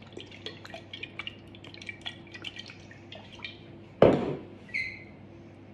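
Olive oil drizzled from a glass bottle, with faint scattered drips and ticks. About four seconds in there is a single loud knock on a hard surface, followed shortly by a brief high clink.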